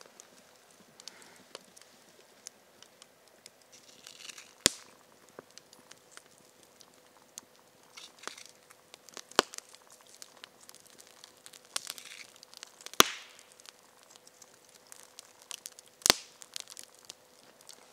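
Campfire crackling, with scattered small ticks and a sharp loud pop every three to four seconds, four in all, and a few short hissing rushes.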